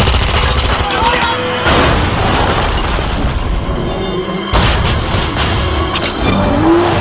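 Action-film car-chase soundtrack: dramatic score mixed with engine noise, booming impacts and shattering glass, with a sudden loud crash about four and a half seconds in as a car tumbles down a rock face.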